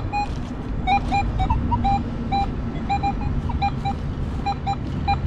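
Nokta Legend metal detector giving short, high beeps as its coil sweeps over wood chips, several irregularly spaced blips a second, over a low rumble.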